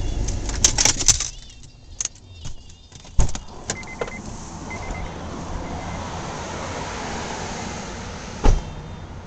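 A car's low engine rumble stops about a second in. Clicks and knocks of keys and the car door follow, with two short electronic chime beeps and steady outdoor noise. A single loud thump near the end is the car door shutting.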